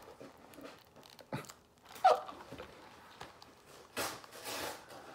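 Gift packaging and DVD cases being handled: a sharp knock about a second and a half in, then a short burst of rustling or tearing near the end.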